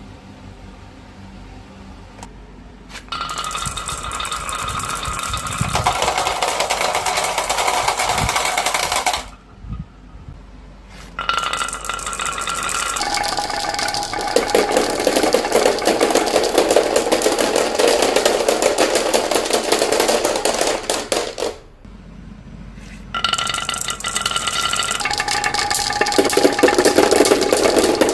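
Marbles rolling and clattering in quick succession down a toy marble run track. The clatter comes in three long runs with two short pauses between them.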